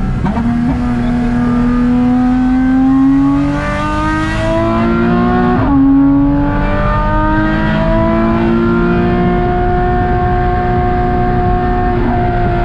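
Porsche Cayman 987.2's flat-six engine pulling hard under full acceleration, heard from inside the cabin: the revs climb, drop sharply at an upshift about halfway through, then climb again and level off near the end.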